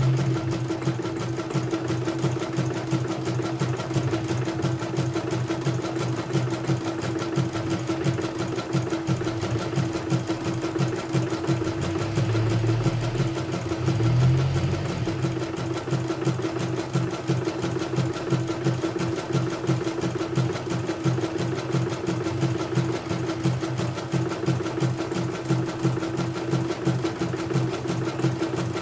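Portable computerized embroidery machine stitching steadily at speed, the needle strokes coming fast and even over a constant hum, with a lower rumble swelling briefly about halfway through. It runs smoothly, the jumping bobbin case it was sent in for now cured.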